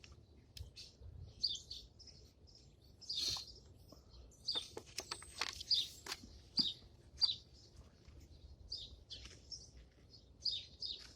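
Small birds chirping repeatedly in short high calls, with a few light clicks in the middle.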